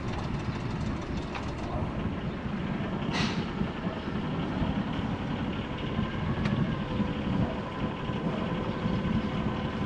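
Inboard diesel engine of a 2014 Jeanneau Sun Odyssey 33i sailing yacht running steadily under way, a low rumble; a faint steady hum joins about six and a half seconds in, and there is a brief hiss about three seconds in.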